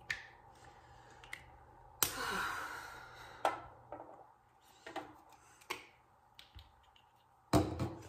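Skincare bottles, jars and caps being handled on a bathroom counter: a string of sharp clicks and taps, with a louder clatter about two seconds in and a heavier knock near the end.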